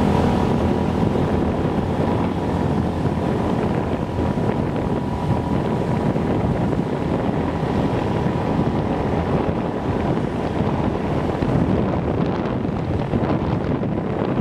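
Wind rushing over the microphone of a camera on a moving motorbike, with the motorbike's engine running steadily underneath.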